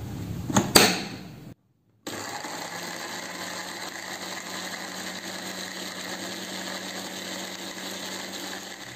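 Electric blender with a small glass grinder jar grinding garlic, candlenuts, coriander seed and turmeric into a spice paste. There is a knock of the jar against the base about a second in. After a brief silence the motor runs steadily with a low hum.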